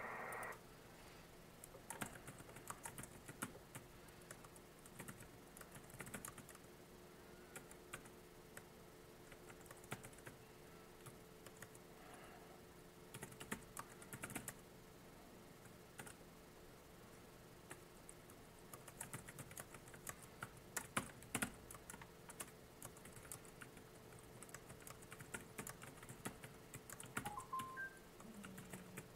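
Faint typing on a computer keyboard: irregular runs of keystrokes with short pauses between them.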